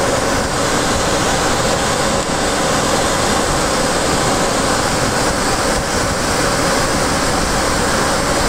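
Steady rushing noise on the flight deck of an Ilyushin Il-86 in flight: airflow and engine noise with a faint steady hum.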